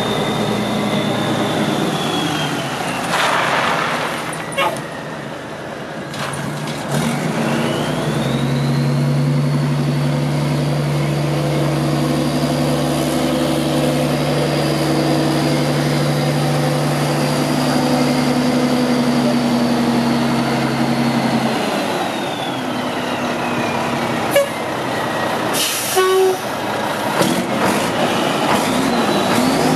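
1995 Mack CH613 tractor's diesel engine running. About seven seconds in it is revved up and held at a steady high speed for about fourteen seconds, with a high whine that rises, holds and then falls away as it drops back to idle. A few short sharp clicks and hisses come near the end.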